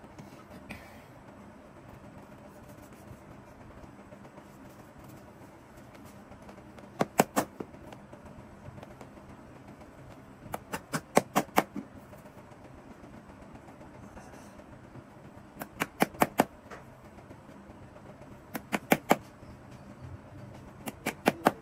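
Shoemaker's hammer tapping leather in quick bursts of three to seven strikes, five bursts a few seconds apart, as the leather welt strip is beaten down onto the boot's sole.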